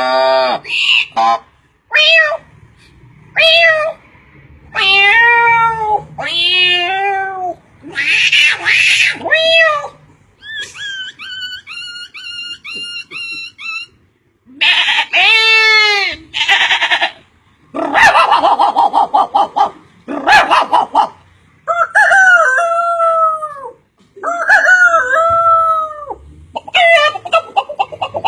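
A string of short animal and bird calls, one after another. Some calls swoop up and down in pitch, a couple are harsh screeches, and about halfway through comes a run of rapid repeated chirps.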